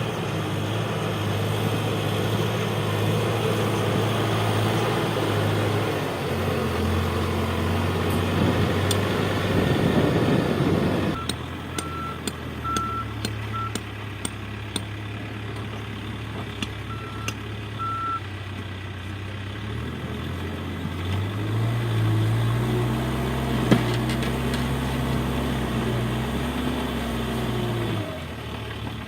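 Heavy earth-moving machine's engine running, louder for the first third and then settling, with its reversing alarm beeping in two short runs. The engine revs up for a stretch in the last third and drops back near the end.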